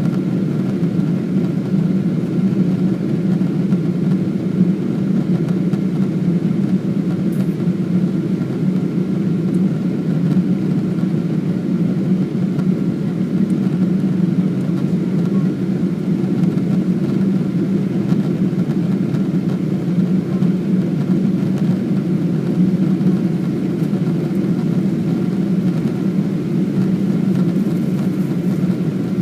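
Boeing 777-200ER cabin noise from a window seat: a steady, deep hum of engines and airflow that holds level throughout, with a faint steady whine above it.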